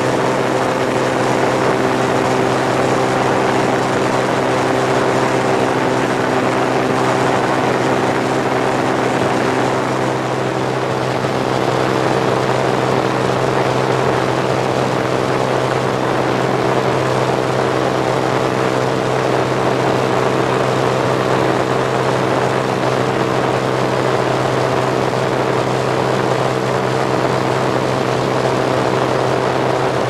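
Engine and propeller of a single-engine light airplane droning steadily, heard from inside the cabin, with a slight change in its tone about ten seconds in.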